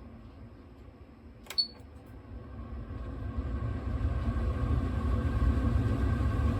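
Kitchen range hood switched on with a short button beep about one and a half seconds in, then its extractor fan spinning up to a steady hum and whir.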